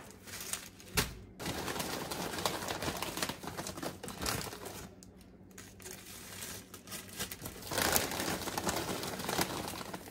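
Plastic sandwich bags and a bag of barbecue potato chips crinkling as chips are handled and packed into small portions, with a thump about a second in. The crackling dies down briefly near the middle and picks up again toward the end.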